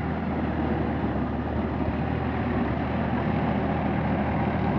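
Sonalika DI-50 RX tractor's diesel engine running steadily as the tractor works through a flooded paddy field.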